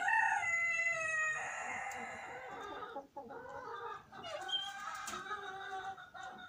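A rooster crows, one long call of about three seconds. Softer clucking follows.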